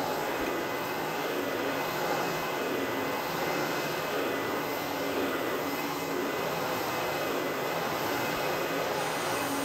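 Truck-mounted hot-water extraction carpet cleaner working a carpet: a steady rush of vacuum suction through the powered cleaning tool and its hose, with a thin steady whistle.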